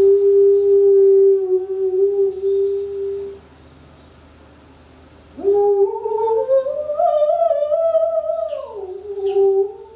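A woman's voice humming long, wordless notes. One note is held steady for about three seconds. After a short pause, a second note scoops up, climbs to a higher pitch and holds there with a slight waver, then slides back down near the end.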